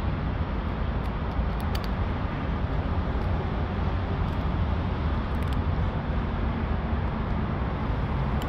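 Steady low rumble of street traffic, with a few faint, crisp clicks from a cat crunching dry kibble.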